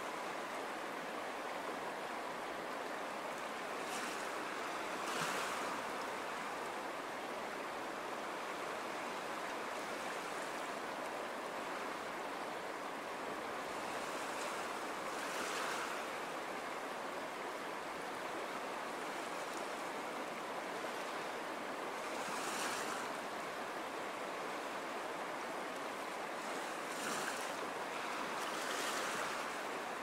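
Ocean waves breaking on a sandy beach: a steady hiss of surf that swells every several seconds as a wave breaks.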